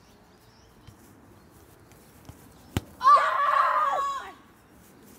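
A child's long, high, held yell lasting about a second and a half, a little after a single sharp thud about three seconds in.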